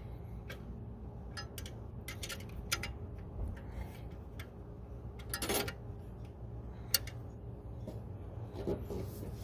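Scattered light metallic clicks and clinks of a hand wrench working on engine-bay parts, over a steady low hum. There is a short rattle about five and a half seconds in and a sharp click about a second later.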